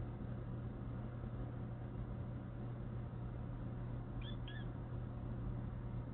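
A kitten gives two short, rising chirps close together about four seconds in, over a steady low hum.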